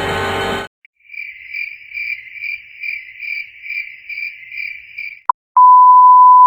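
Music cuts off, then a cricket-chirping sound effect: about ten even chirps over four seconds. Then a short blip and a loud, steady censor beep near the end.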